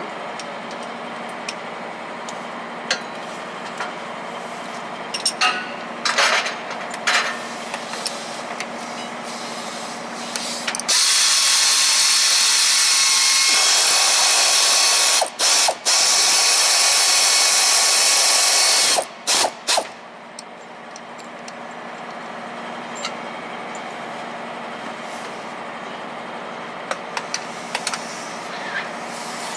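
Tool clicks and knocks at a fitting on a MAN truck's automated gearbox. About eleven seconds in comes a loud hiss of air escaping from the loosened line, lasting about eight seconds with two brief breaks.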